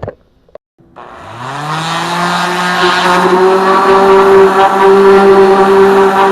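A couple of clicks, then an electric palm sander is switched on about a second in. Its motor spins up with a rising whine and settles into a loud, steady hum.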